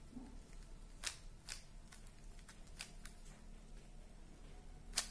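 Plastic Rubik's Cube being twisted by hand: a scatter of short clicks and clacks as its layers turn, at irregular intervals, the sharpest just before the end.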